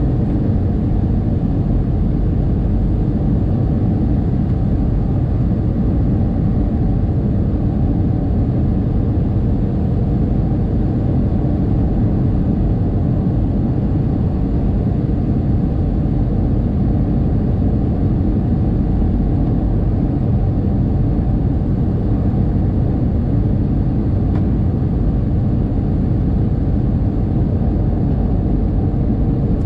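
Steady low rumble of an Airbus A321's engines and rushing air, heard inside the passenger cabin during the low descent to land.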